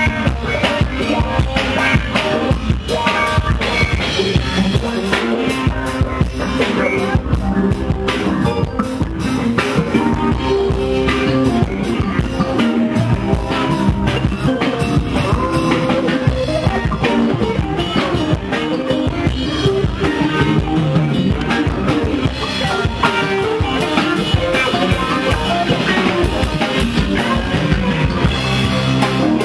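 Live band playing an instrumental jam, with the drum kit driving a steady, busy beat.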